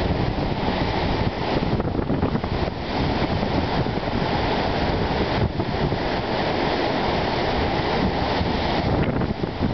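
Wind-driven lake waves breaking and washing over a rocky shore in a steady roar of surf, with wind gusting on the microphone.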